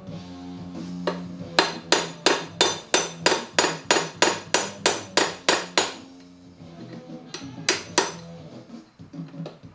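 A hammer striking metal in a quick, even run of about fourteen ringing blows, roughly three a second, then two more blows near the end, with background music underneath.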